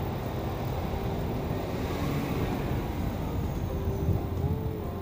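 Wind buffeting the microphone over the steady rumble of a bicycle rolling along a paved path.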